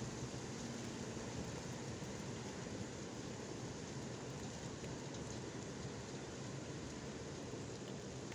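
Torrential downpour of big raindrops falling steadily, an even hiss with no thunder or single impacts standing out.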